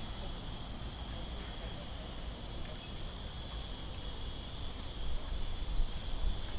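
A steady, high-pitched chorus of insects, unbroken throughout, over a low rumble on the microphone that grows louder about five seconds in.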